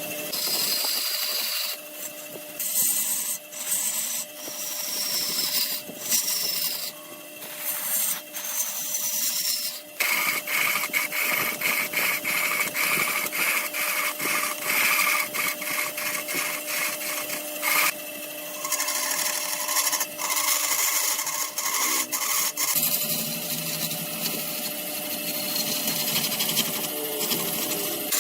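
Wood lathe running with a steady motor hum while a turning tool cuts the spinning wood, a hissing, scraping sound, with a stretch of rapid chattering clicks in the middle.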